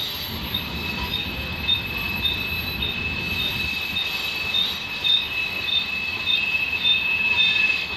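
Slow-moving freight train's steel wheels squealing on the curving track as the covered hoppers roll past. A steady high squeal is joined by a shorter squeal that repeats about twice a second, over a low rumble of the cars.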